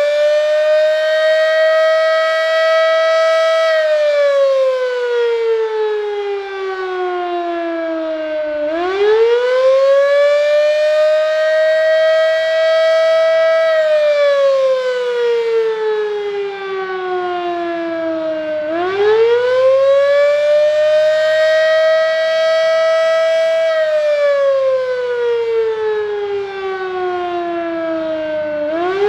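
Darley 3V8 fire siren sounding a test in repeated cycles. It holds a steady high pitch for about four seconds, winds down over about five seconds, then winds straight back up, about every ten seconds.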